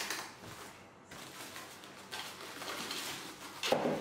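Unpacking noises: a plastic-wrapped electric contact grill and its expanded-polystyrene packing blocks being handled, with rustling and scraping, then a louder knock near the end.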